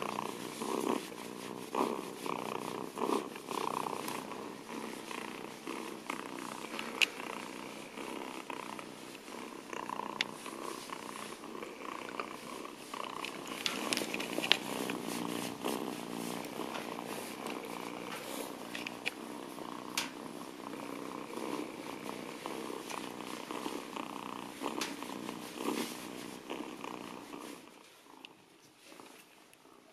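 Kitten purring steadily, close up, while it is rubbed dry with a terry towel, with towel rustling and a few small clicks. The sound fades away about two seconds before the end.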